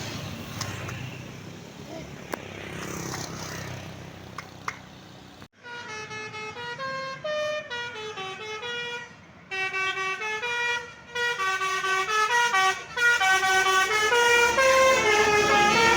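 Traffic rumble for about the first five seconds. Then, after a sudden break, a bus's 'telolet basuri' multi-tone musical air horn plays a melody of quick stepped notes, which gets louder near the end.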